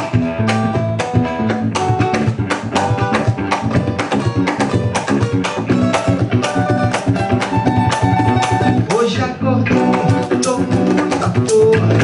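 Band playing an instrumental passage of a song, with drums and percussion keeping a steady beat under pitched instruments.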